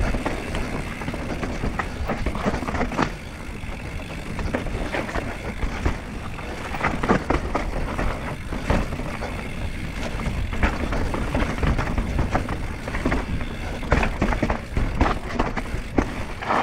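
Mountain bike riding fast down a rough, rooty forest trail: a steady rush of wind and tyre noise on the camera microphone, with frequent rattles and knocks as the bike hits roots and bumps.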